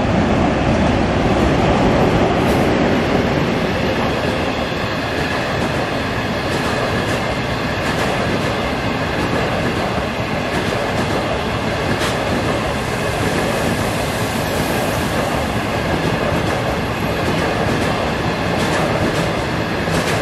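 Locomotive-hauled passenger train rolling past: a steady rumble of wheels on rail with scattered wheel clicks, loudest in the first few seconds as the locomotive goes by, then even as the coaches follow.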